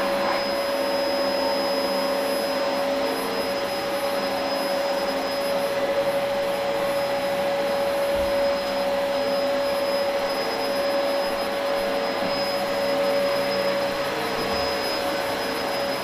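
Dyson DC04 upright vacuum cleaner running steadily as it is pushed over carpet, its motor giving a constant whine.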